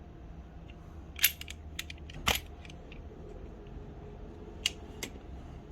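Small metal clicks and clinks of a die-cast toy car and its loose parts being handled and set down on a hard surface: a handful of sharp clicks, the loudest about two seconds in.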